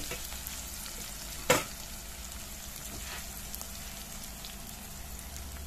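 Sliced onions, green chillies and panch phoron sizzling steadily in hot oil in a steel pot, with one sharp knock about a second and a half in.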